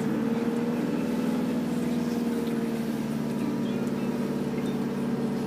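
A 4x4 reversing slowly, heard from inside the cabin: the engine and drivetrain run with a steady whine that rises slightly in pitch about half a second in and then holds steady.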